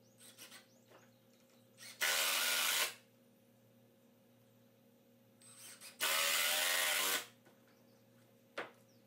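Power drill driving screws into wood, run in two bursts of about a second each, about four seconds apart, each starting and stopping abruptly. A single sharp click near the end.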